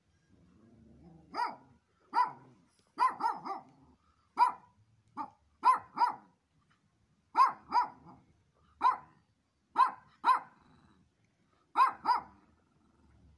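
Miniature pinscher barking repeatedly: short, sharp barks, some single and some in quick pairs or threes, starting about a second and a half in.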